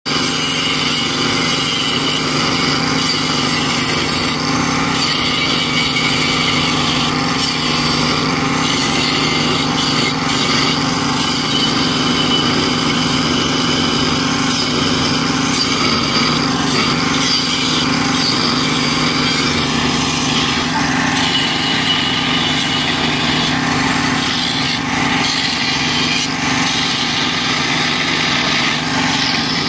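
Electric angle grinder with an abrasive cut-off wheel running steadily under load, grinding through the wall of a rusty steel pipe to cut a saddle.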